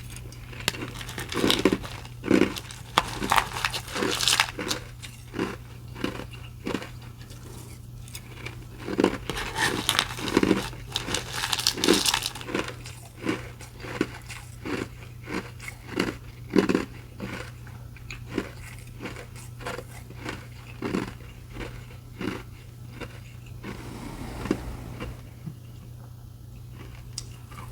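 Ice being bitten and chewed close to the microphone: a run of loud, crisp crunches, heaviest in the first few seconds and again around ten to twelve seconds in, then lighter, quicker chewing that thins out near the end.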